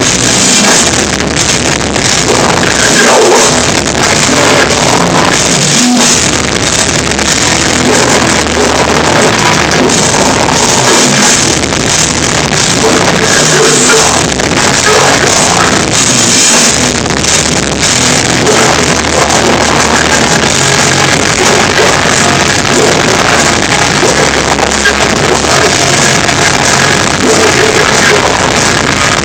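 Melodic hardcore band playing live, with distorted guitars and drum kit, recorded loud and overloaded so the sound is crushed and muddy.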